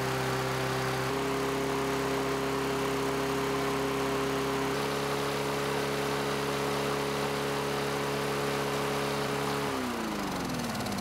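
Toro lawn mower's small single-cylinder engine running steadily with a crankcase of burnt honey thinned with Marvel Mystery Oil. About ten seconds in, its pitch falls as it is shut off and spins down.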